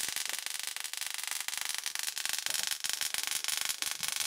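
High-voltage sparks from a car ignition coil pack arcing and crackling onto a foil-wrapped CD-spindle capacitor: a dense, irregular run of sharp snaps that goes on steadily, with a faint steady high tone beneath.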